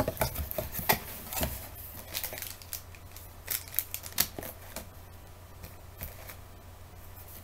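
Hands handling and opening a cardboard product box: irregular light scrapes, rustles and clicks, thinning out after about five seconds.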